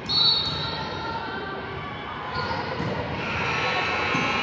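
A short, high referee's whistle blast right at the start, then the echoing din of a volleyball game in a gym: spectator chatter and ball and court sounds.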